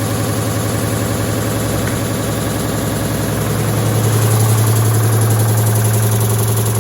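Indesit washing machine on a fast spin with a stone in the drum, the load unbalanced: a loud steady low hum with a fast, even rattle, growing a little louder about four seconds in.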